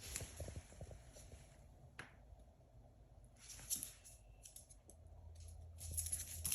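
Havanese puppy eating her food and moving about: faint, scattered clicks and short rustles.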